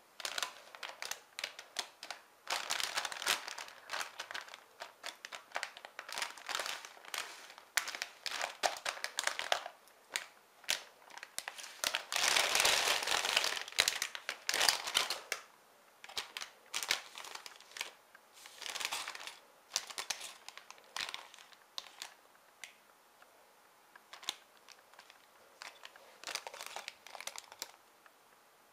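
Clear plastic polybags of LEGO parts crinkling as they are handled, in irregular bursts, longest and loudest about twelve to fourteen seconds in.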